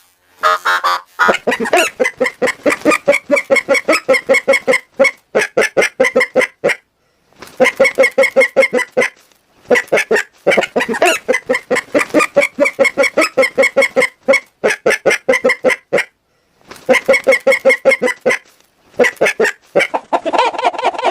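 Hen clucking in quick runs of short calls with brief pauses, the recording altered by a voice-changer effect. Near the end the effect switches to a different treatment.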